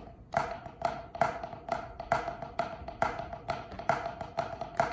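Two players striking a drum practice pad with wooden drumsticks: a steady run of taps, about three a second, with lighter taps in between.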